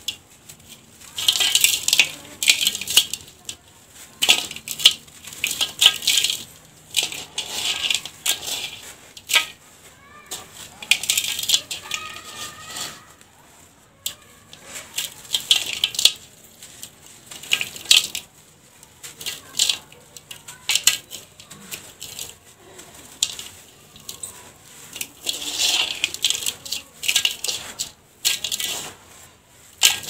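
Hands crushing lumps of dry, gritty dirt in a steel tub and letting the powder pour back in: repeated crunching, sifting bursts every second or two, with small grains ticking on the metal.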